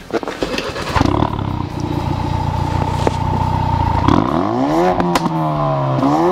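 2016 Ford Focus RS's 2.3-litre turbocharged four-cylinder engine, heard at the exhaust, idling steadily with a high whine over it, then revved twice, the revs rising and falling about four seconds in and rising again near the end. A few clicks come before the engine note in the first second.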